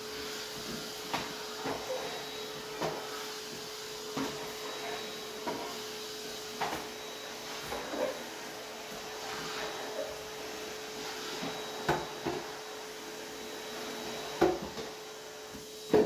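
Henry vacuum cleaner running steadily with a constant hum while the wand and floor nozzle are pushed over hardwood stair treads, knocking against the treads and risers about once a second, with a louder knock near the end.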